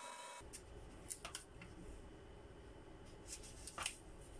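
Faint crinkles and rustles of masking tape being handled and pressed onto a painted plastic part: a few short crackles about a second in and again near the end, over a low hum.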